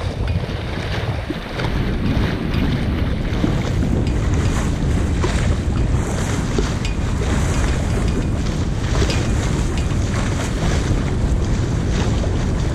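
Wind buffeting the microphone over water washing and splashing along the hull of a sailboat under way, steady throughout.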